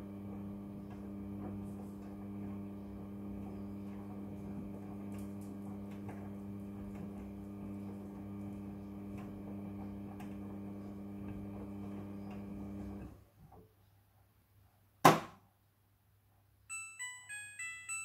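Midea front-loading washing machine's drum motor humming steadily as the drum turns slowly to even out and loosen the laundry after the spin, stopping about 13 seconds in. About two seconds later the door lock releases with one loud click, and near the end the machine starts its end-of-cycle melody of short beeping tones.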